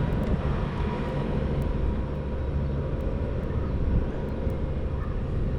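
Steady low rumble of background traffic, with a faint steady hum above it.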